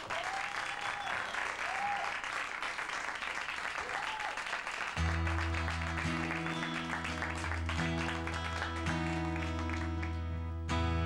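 Studio audience applauding and cheering for the band. About halfway through, the band starts playing low sustained notes under the continuing applause.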